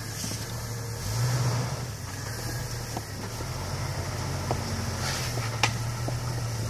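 Jeep engine running at low revs as the rig crawls slowly over rocks, the note swelling briefly about a second in. A couple of sharp knocks come near the end.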